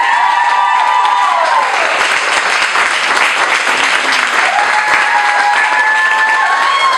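Audience applauding at the end of a performance, with long, high whoops from a few people near the start and again about five seconds in.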